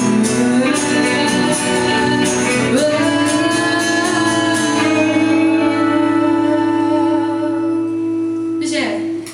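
Live pop-rock band with a singer and electric guitar playing the end of a song. The first seconds carry a steady beat, then from about three seconds in the singer holds one long final note over a sustained chord, and the band cuts off together near the end.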